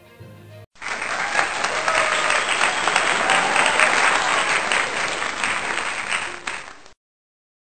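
Crowd applauding, many hands clapping at once. It starts about a second in and cuts off suddenly near the end.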